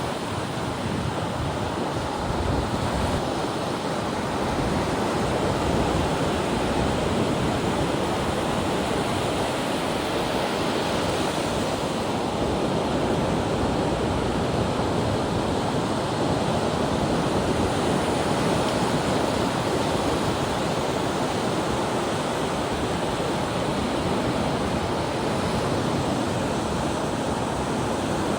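Ocean surf breaking and washing on a beach, a steady rush of waves with wind buffeting the microphone.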